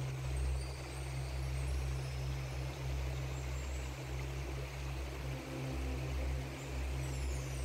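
Glacial meltwater stream rushing over rocks, a steady rush with a low, uneven rumble underneath.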